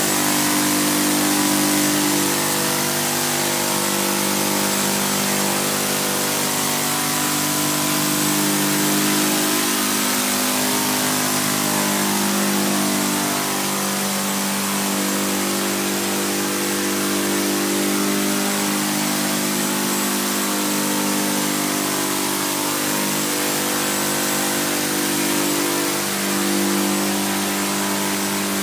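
Saito FG-20 single-cylinder four-stroke gasoline engine and propellers of a hybrid multirotor running steadily in hovering flight. The engine note rises and falls a few times as the throttle is worked.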